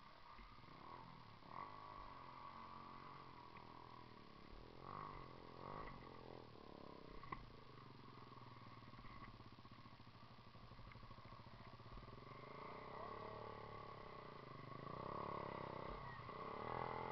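Dirt bike engine running, its pitch rising and falling with the throttle, getting louder near the end.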